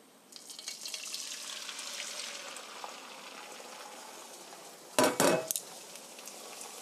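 Beaten eggs sizzling in hot grapeseed oil in a nonstick frying pan. The sizzle starts as the eggs hit the oil and then holds steady. A brief loud clatter of dishes comes about five seconds in.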